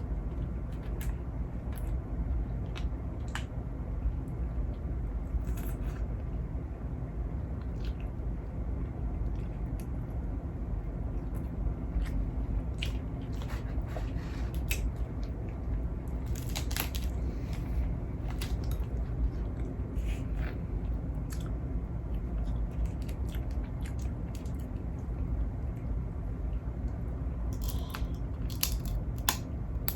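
Close-up eating of crab legs: scattered sharp cracks of shell being bitten open, with chewing between them, over a steady low hum.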